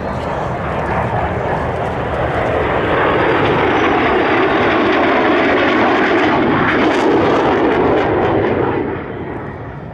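Fixed-wing aircraft flying past, a loud rushing engine noise that builds over the first few seconds, holds, then drops off abruptly near the end.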